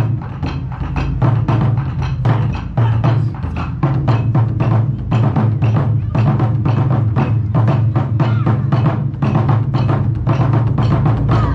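Taiko drum ensemble playing: a fast, continuous run of stick strikes on large barrel drums, with a strong low boom under the sharper hits.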